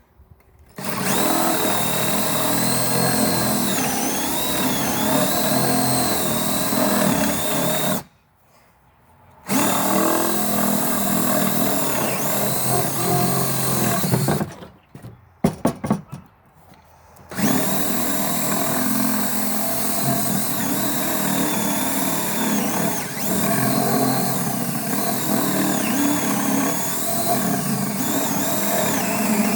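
DeWalt DC970 compact 18-volt cordless drill boring holes in a board, running under load in three long stretches with short stops about eight seconds in and again around fifteen seconds. Its whine wavers in pitch as it bogs under load. A few sharp knocks sound in the second stop.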